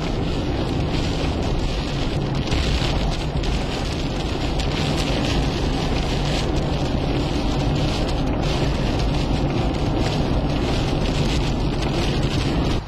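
Rain hitting the windshield and roof of a moving car, over steady road and engine noise inside the cabin.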